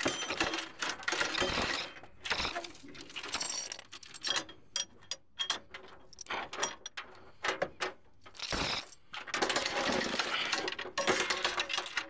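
Heavy steel tow chain clinking and rattling link against link as it is handled and hooked onto a lawn tractor's front end, in bursts with short pauses between them.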